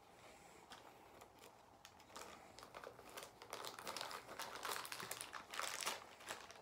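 Small plastic bag crinkling as it is handled and picked open, in irregular crackles that get busier from about two seconds in.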